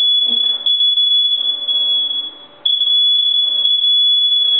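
Long, loud, high-pitched electronic beep held steady, breaking off for a moment about two and a half seconds in and then starting again. It is the beeping that sounds whenever the clothes dryer is running.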